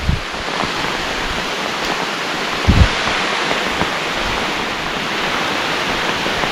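Steady hiss of rain falling around a hiker on a forest trail, with a couple of dull low thumps.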